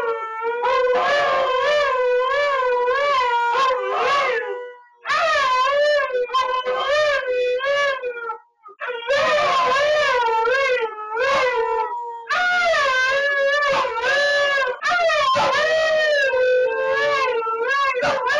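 Two Siberian Huskies howling together in long, wavering howls: one holds a fairly steady note while the other rises and falls above it. They break off briefly about five seconds in and again near the middle, then start again.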